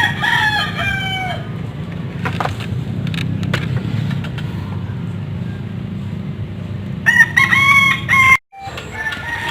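Rooster crowing twice, once at the start with a falling call and again about seven seconds in, over a steady low rumble.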